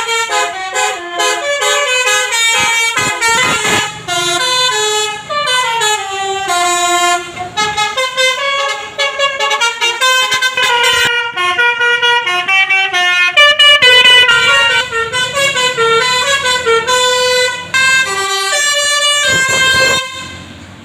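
Telolet basuri bus horn played through its module, sounding a fast melody of short stepped notes. The melody stops near the end.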